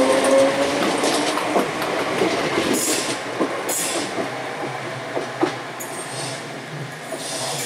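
ScotRail Class 320 electric multiple unit accelerating away: the rising whine of its traction motors dies out about half a second in, then its wheels click over the rail joints. The sound fades as the train draws off.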